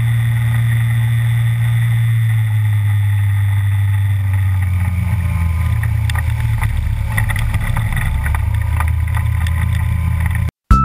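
Aventura amphibious ultralight's pusher engine running steadily at high power while its hull skims across water, with the hiss of spray along the hull. The engine note drops slightly about three to five seconds in, and the sound cuts off abruptly just before the end.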